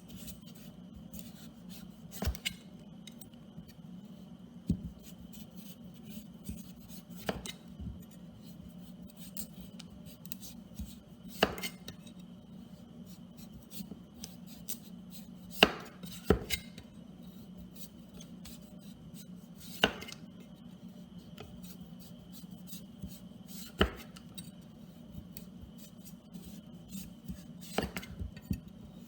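Kitchen knife cutting through a butternut squash, landing on the cutting board in sharp single knocks every few seconds, over a steady low hum.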